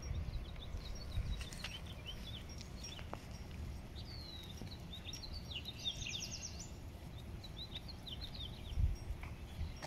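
Small songbirds chirping and trilling, several quick calls overlapping, over a steady low rumble with a few low bumps, the loudest near the end.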